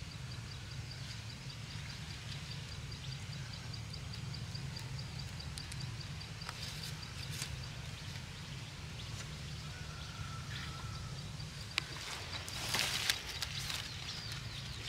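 Outdoor field ambience: a steady low rumble with a fast, high-pitched ticking that repeats through the first half and again briefly later. Near the end comes a burst of leaf rustling and crackling as a freshly cut broccoli head with its leaves is handled into a wicker basket.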